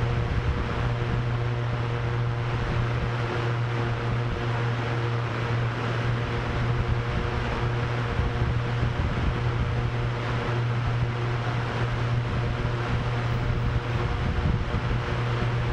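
Drone propellers whirring with a steady low hum, mixed with gusty wind rumbling and hissing over it.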